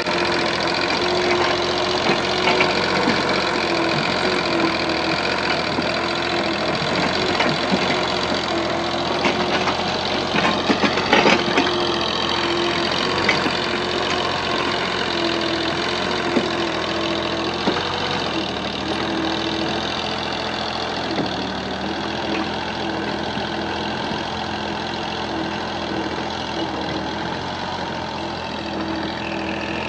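An engine running steadily, with a short cluster of clatters about eleven seconds in.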